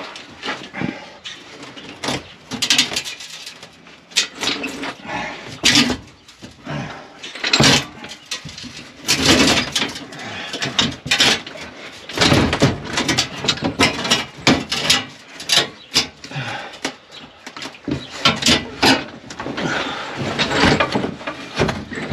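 Irregular clanks, knocks and scraping as parts and tools are handled and worked into place under a pickup truck, in uneven bursts with no steady rhythm.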